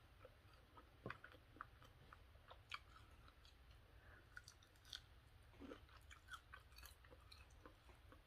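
Faint chewing of crispy fried chicken wings, with small irregular crunches and mouth clicks.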